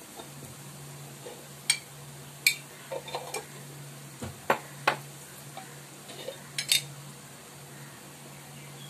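Kitchen utensils clinking: about half a dozen sharp, separate clinks spread over several seconds, as red chilli powder is spooned out for the curry, over a low steady hum.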